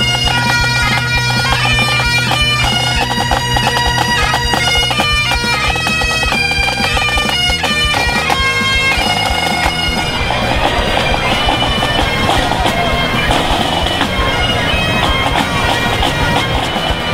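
Bagpipes playing a tune over a steady low drone, the melody moving in quick stepped notes.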